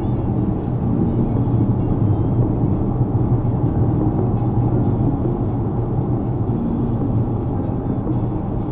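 Steady road and engine noise inside a Mazda CX-5's cabin as it drives along a highway, a low, even rumble.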